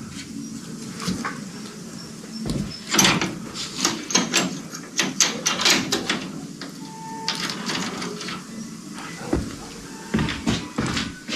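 Handling noise from hands-on repair of a kennel fence panel: irregular clicks, scrapes and rattles, busiest from about three to six seconds in.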